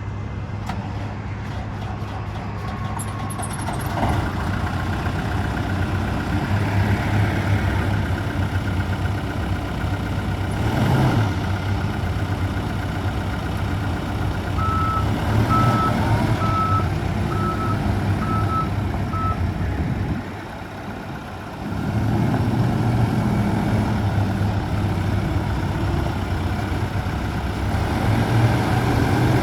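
Case 580SN backhoe's diesel engine running steadily, briefly dropping in level about two-thirds of the way through. Midway, its reversing alarm beeps six times, about once a second.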